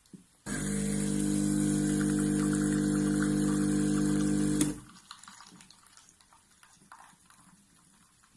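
Breville Bijou espresso machine's 15-bar pump running with a steady buzzing hum and water hiss for about four seconds, then cutting off suddenly.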